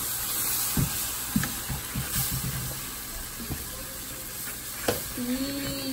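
Plastic spoon stirring flour gravy in a pot, a run of light scrapes and taps against the pan over the steady hiss of the hot, simmering liquid.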